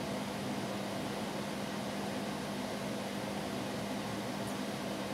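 Countertop microwave oven running mid-cycle while heating food, a steady even hum.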